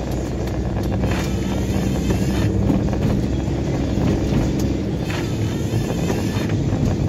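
A car driving on a snowy, slushy road: a steady engine drone with tyre and road noise.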